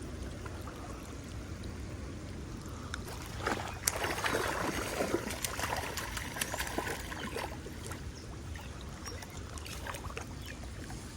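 Water trickling and splashing over a steady low rumble, with a burst of louder splashing and sharp clicks from about a third of the way in to two-thirds through.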